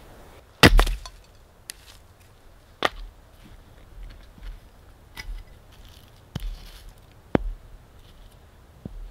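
Hatchet blows splitting firewood: a loud crack about a second in, then sharp chops on the wood every second or so.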